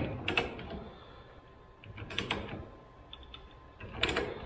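A few sharp metallic clicks and clacks from a torque wrench and socket being fitted and worked on a 19 mm nut on a steel stud, in small clusters about two seconds apart with faint ticks between.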